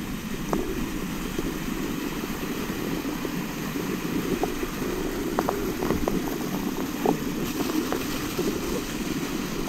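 Water of a limestone waterfall rushing steadily close to the microphone, with a few faint clicks.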